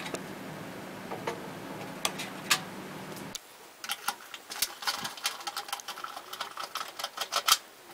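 Quick small clicks and scrapes of stiff wires and plastic wire nuts being handled at the end of a fluorescent ballast. They sit over a steady low hum that cuts off suddenly about three seconds in, after which the clicking comes thick and fast.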